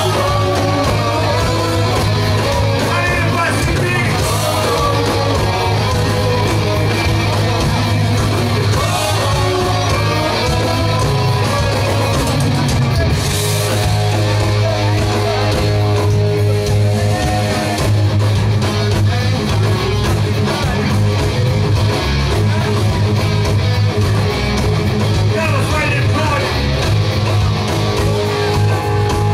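Rock band playing live on amplified electric guitars, bass and drum kit, with a man's voice singing over it in places.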